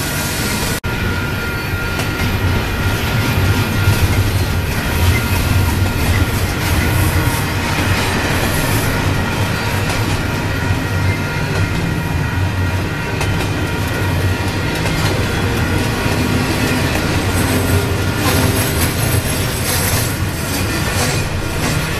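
Double-stack container well cars of a freight train rolling past at speed: a steady low rumble of steel wheels on the rails with clatter over the joints and a thin high whine above it.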